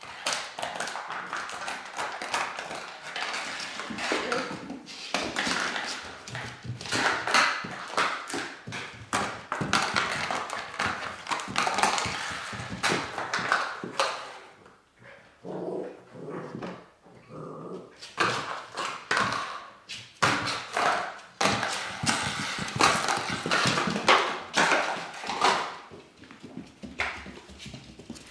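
Dalmatian puppy moving about and playing, a busy run of scuffs and taps with a quieter stretch a little past halfway.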